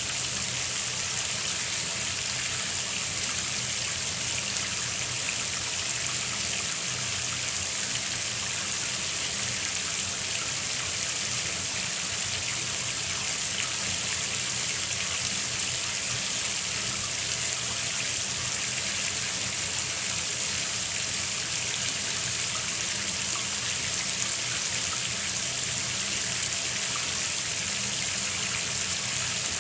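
Shower running steadily, water spraying and splashing in an even hiss, with a steady low hum underneath.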